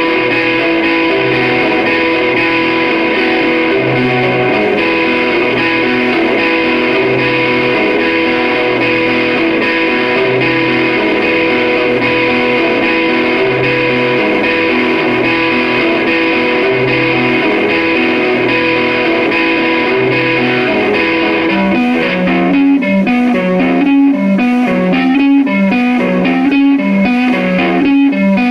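An Electra electric guitar playing long held chords over a slow, alternating low note. About 22 seconds in it changes to quicker, choppier picked notes.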